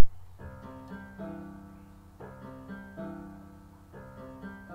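Instrumental background music of plucked-string chords, each chord changing about every second. It opens with a sharp click right at the start, the loudest moment.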